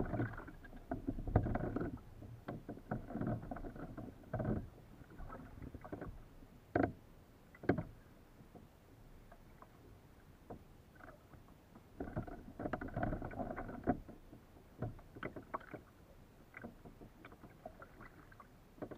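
Water slapping and splashing against a Hobie kayak's hull in uneven bursts, with a couple of sharp knocks about seven to eight seconds in.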